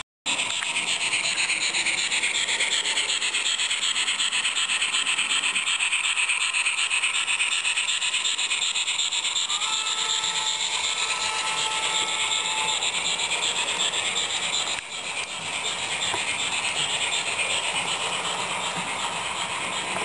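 Sound decoder of a Roco H0 model steam locomotive playing its running sound through the model's small loudspeaker: rapid steam chuffing and hiss, mixed with the rolling of the train on the track. About halfway through, a steady two-note tone, the locomotive's whistle, sounds for about three seconds.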